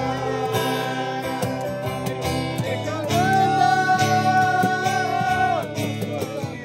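Music with plucked acoustic guitar, with one long held note from about three seconds in until near the end.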